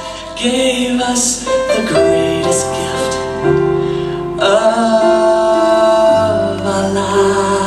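Music: a slow worship song, keyboard chords under long held notes.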